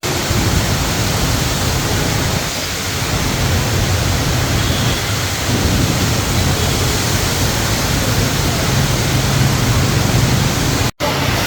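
Storm rain falling as a loud, steady hiss, broken by a split-second dropout near the end.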